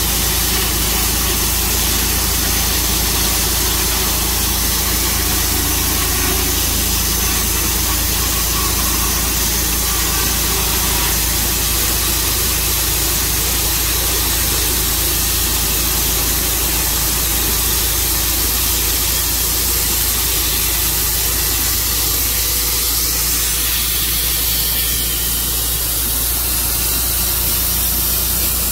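Tru Cut sawmill's engine running steadily, with a constant hiss above it.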